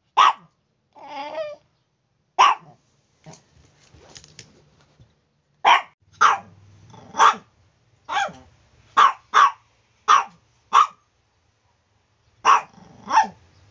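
A chihuahua barking, about a dozen sharp, high-pitched single barks at uneven intervals, with a short whine about a second in.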